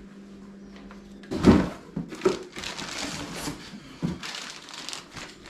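Handling noise from working on a bike: a loud knock about a second in, then irregular clattering and rustling that goes on to the end.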